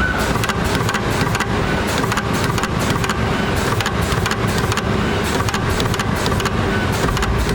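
Automatic battery pack spot welding machine running: a steady low mechanical hum with many short, irregular clicks and snaps.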